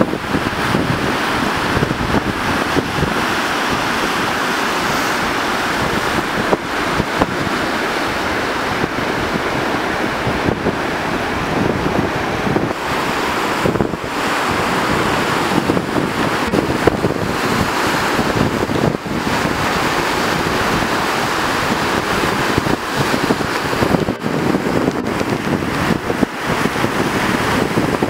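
Pineios River in flood rushing and churning past the bridge piers, a steady loud rush of turbulent water, with wind buffeting the microphone.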